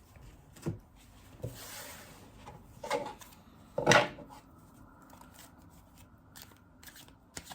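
Handling of a deck of cards on a table: a soft brushing slide and scattered taps and knocks, the loudest about four seconds in, with lighter clicks near the end.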